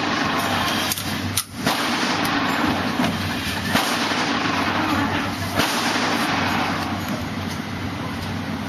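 Gunshots at a shooting range: several single shots, irregularly spaced, over a steady noisy background.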